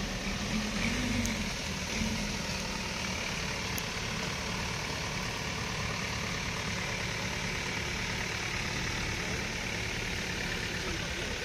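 Diesel engine of a loaded box truck idling steadily.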